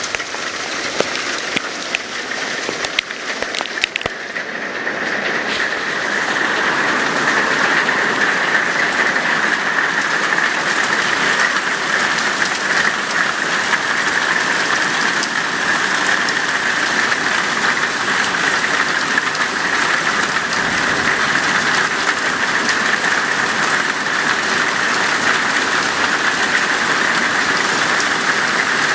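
Heavy hail pelting the ground and patio: a dense, steady rattle of countless pellets. There are separate sharp clicks in the first few seconds, then it grows louder and steadier about six seconds in.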